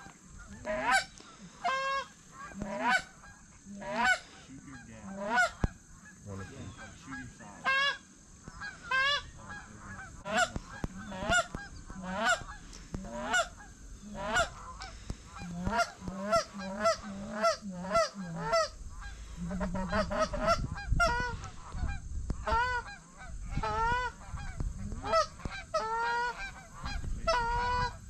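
Geese honking over and over, one or two honks a second, some overlapping, with a low rumble joining in the second half.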